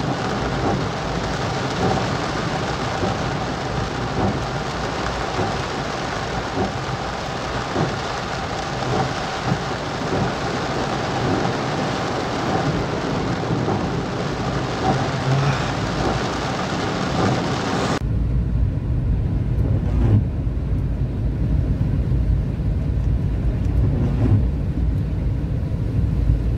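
Heavy rain drumming on a car's roof and windshield, heard from inside the moving car. About 18 seconds in it cuts off suddenly, leaving the low rumble of the car driving on the wet road.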